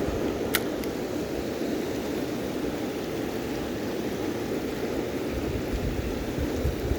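Steady rushing of a flowing river, with one short click about half a second in.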